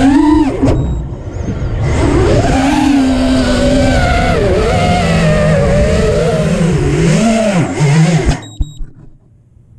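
Small drone's electric motors and propellers whining from the camera on board, the pitch rising and falling with the throttle and dipping briefly about a second in. The motors cut off suddenly near the end, followed by a few knocks as the drone comes down.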